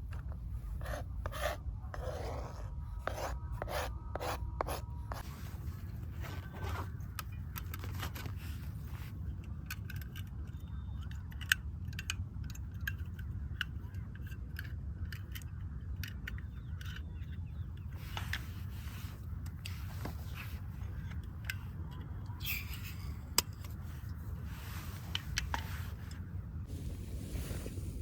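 Close handling sounds: scraping, rubbing and sharp clicks, most frequent in the first few seconds and again in the latter part, over a steady low rumble.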